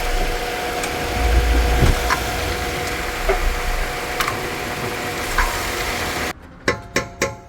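Hyundai Solaris running, with a steady low rumble that swells briefly about a second in, and a few faint sharp knocks. The car has a front-left knock when pulling away that the owner puts down to a worn CV joint. The sound cuts off abruptly about six seconds in, followed by three sharp clicks.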